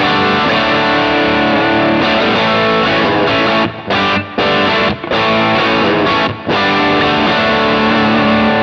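Distorted electric guitar played through a Kemper Profiler amp profile with its EQ reshaped, a riff of held chords and notes broken by a few short stops.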